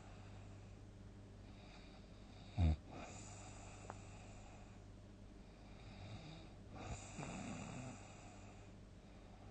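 A sleeping person snoring heavily: a short, very loud snort about two and a half seconds in, quieter breathing, then a longer rumbling snore near the end. A steady low hum runs underneath.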